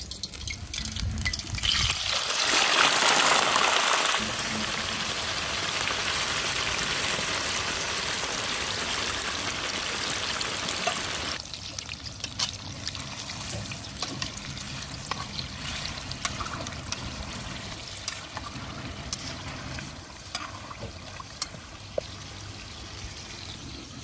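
Raw chicken pieces going into hot oil, which sets off a loud sizzle about two seconds in. The oil keeps sizzling steadily, then about halfway through settles to a quieter sizzle with scattered crackles and pops.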